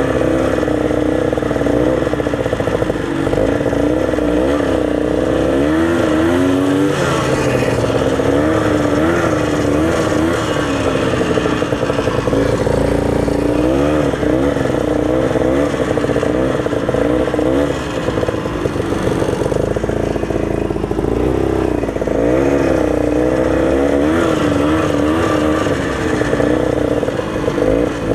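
Old Ski-Doo snowmobile's two-stroke engine running under way, its pitch rising and falling again and again as the throttle is worked.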